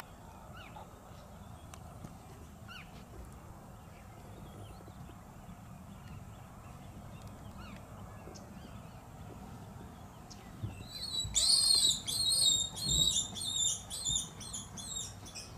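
Warthog piglet's shrill distress squeals: a loud burst of high-pitched squeals starts about eleven seconds in and repeats several times, weakening toward the end, over faint small chirps.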